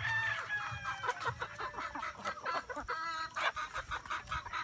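A flock of gamefowl chickens clucking and calling over feed, with a louder squawk about three seconds in. Many short clicks run through it as the birds peck at the bamboo feeding trough.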